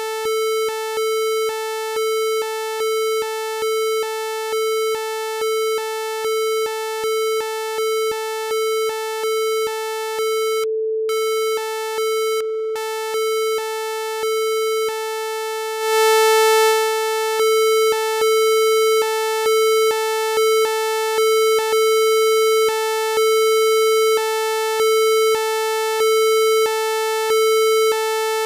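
Synthesized emergency alert tone: a steady low electronic tone with higher tones beeping over it about twice a second, changing to a slower pattern of longer beeps about halfway through.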